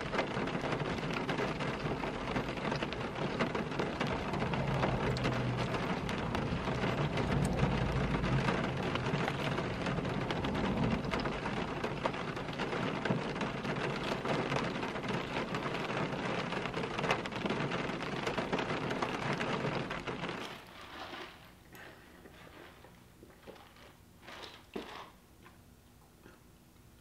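Rain drumming on a car's roof and windows, heard from inside the cabin as a dense, steady patter. It cuts off abruptly about 20 seconds in, leaving a quiet room with a few faint small clicks.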